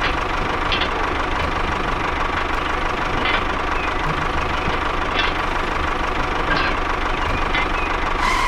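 Tractor engine running steadily with a rough knocking beat, a thin steady whine running through it.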